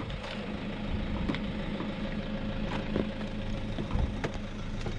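An SUV's engine idling steadily, with a few faint clicks.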